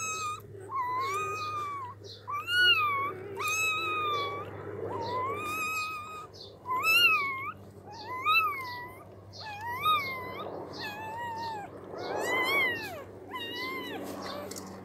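Newborn puppies, eyes not yet open, crying in a string of short high-pitched calls, about one a second, each rising and then falling in pitch.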